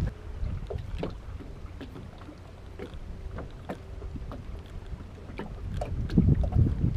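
Low, steady rumbling noise with scattered light clicks and a faint hum; the rumble swells again near the end.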